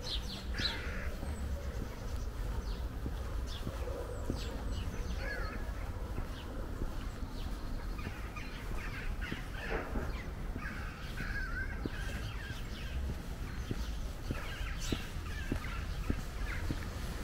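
Birds calling on and off over a steady low rumble of wind, with faint regular footsteps.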